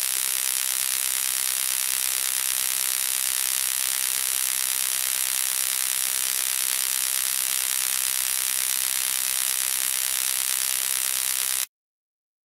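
Vis Influere high-frequency therapy wand buzzing steadily while its glass electrode glows with electrical discharge: a dense, hissy electric buzz that cuts off abruptly near the end.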